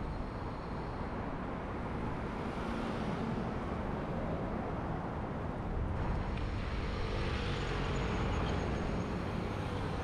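Steady city road traffic: a continuous wash of passing vehicles and engines, a little louder in the second half.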